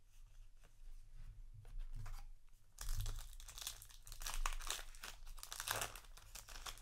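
Foil booster-pack wrapper being handled, crinkling and tearing, with light handling clicks at first and louder, steady crinkling from about three seconds in.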